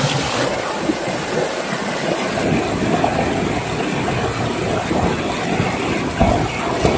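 Shallow rocky stream rushing and splashing over boulders and small falls in a steady, loud rush of water. Two dull thumps near the end.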